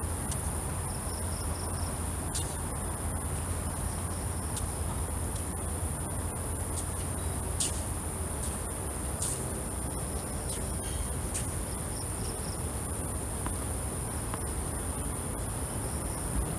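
Steady high-pitched chirring of night insects, with a low hum underneath and a few faint knocks.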